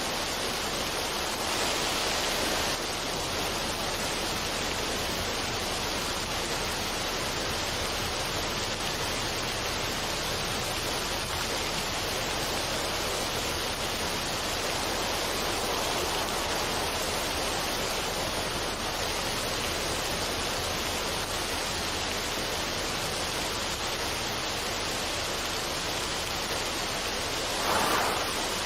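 Steady rushing of a waterfall where a mountain stream runs over rocks, an even water noise with a brief louder surge near the end.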